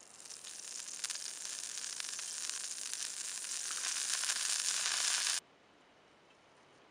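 Olive oil sizzling and crackling as it is poured onto a hot Himalayan salt block, growing steadily louder for about five seconds, then cutting off suddenly.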